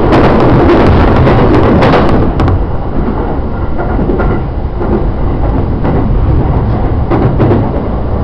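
Running noise of a JR E231-series commuter train, heard inside the car: a steady rumble of wheels on rail, loudest in the first two seconds, with a few sharp clicks.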